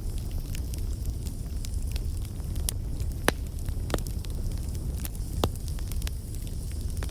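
Wood fire burning, with a steady low rumble under frequent sharp crackles and pops. The loudest pops come about three seconds in and again a couple of seconds later.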